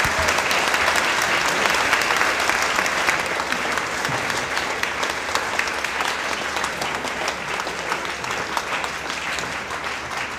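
Audience applauding: a dense patter of many hands clapping, loudest in the first few seconds and slowly thinning out.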